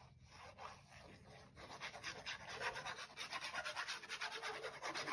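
Tip of a squeeze bottle of liquid glue scratching and rubbing across the back of a piece of patterned paper as glue is spread on it. It goes in rapid short strokes, faint at first and louder from about two seconds in.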